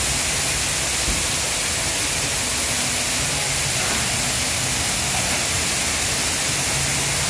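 High-pressure jets of an automatic touchless car wash spraying water and foam onto a car: a steady hiss of spray hitting the bodywork.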